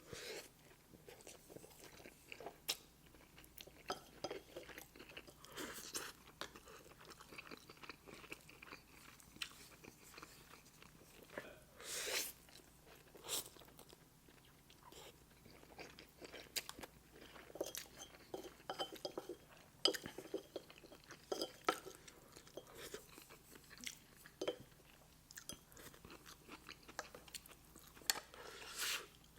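Close-miked mouth sounds of a person chewing and biting food: irregular wet smacks, clicks and short crunches, with a louder crunch about twelve seconds in.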